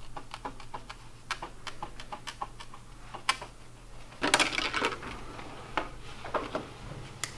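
Aviation tin snips cutting through a plastic bucket lid: a string of sharp snip clicks, with a louder crackling clatter of plastic about four seconds in, followed by a few more clicks.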